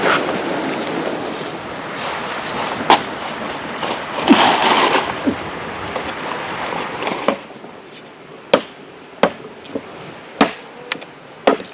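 Steady rushing of water, with wind buffeting the microphone and a louder swell about halfway through, cut off suddenly. It is followed by a quieter stretch with a series of sharp, separate knocks.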